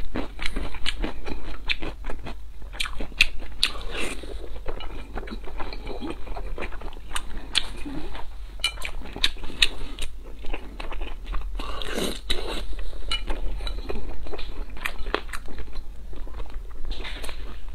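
Close-miked chewing of soft braised pork belly: a steady run of short wet mouth clicks and smacks.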